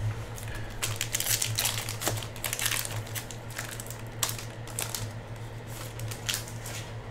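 Foil trading-card pack being torn open and its wrapper crumpled as the cards are pulled out: an irregular run of crisp crackles and rustles.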